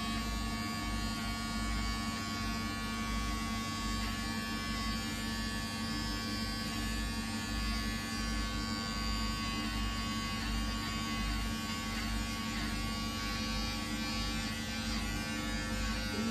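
Electric hair clippers running with a steady buzz while cutting a boy's short hair.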